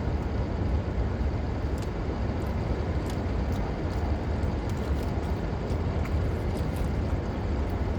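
Steady low rumble of a car with the listener sitting inside it, with a few faint small clicks.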